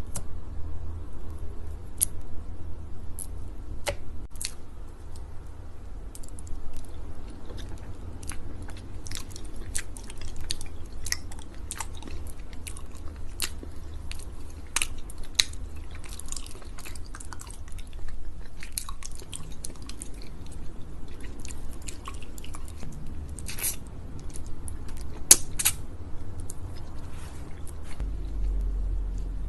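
Close-miked chewing of sticky honey: a steady stream of wet, sticky mouth clicks and smacks, several a second.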